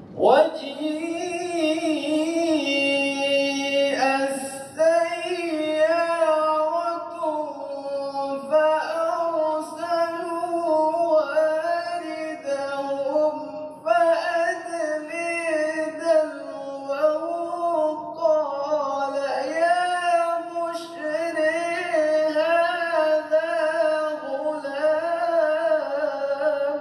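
A male qari reciting the Quran in a slow, melodic qiraat chant: a single high voice holding long, ornamented notes, with short breaks for breath every few seconds.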